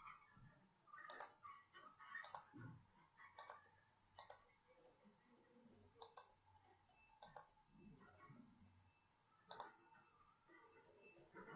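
Faint computer mouse clicks, about seven of them spaced irregularly, most heard as a quick double press-and-release.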